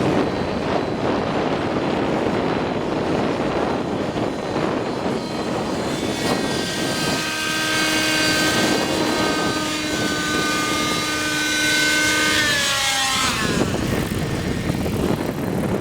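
Radio-controlled helicopter flying, its rotor and motor sound mixed with wind noise on the microphone. From about six seconds in a steady whine with several tones stands out, and its pitch drops quickly about 13 seconds in.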